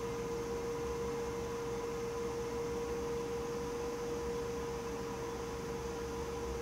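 A steady hum: one constant mid-pitched tone with a fainter higher tone above it, over a low rumble and faint hiss.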